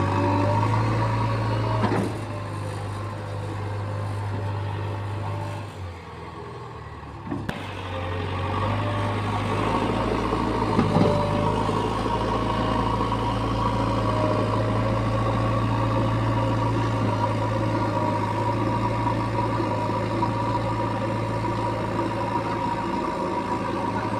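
Heavy diesel engine running steadily. It drops away briefly about six seconds in and picks back up a second and a half later.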